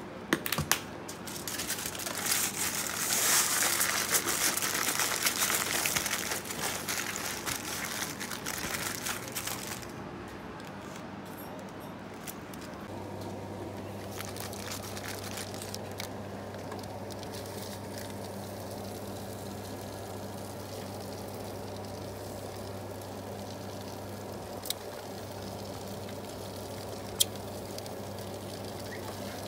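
Aluminium foil crinkling and crumpling as it is folded over a bundle of asparagus and onion, for about ten seconds. Then a quieter steady low hum, with two sharp clicks near the end.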